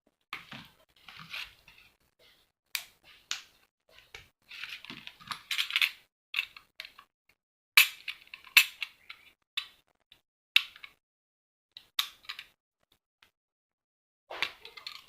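Hand tools breaking open the steel casing of a fake 18650 lithium-ion cell: irregular sharp metal clicks and snaps with scraping and rustling in between.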